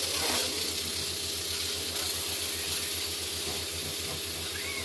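Food cooking in a pan on the stove, giving a steady hiss.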